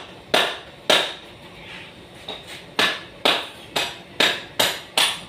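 Hammer blows on metal, struck by hand: eight sharp strikes. Two come in the first second, then a pause of nearly two seconds, then six about half a second apart.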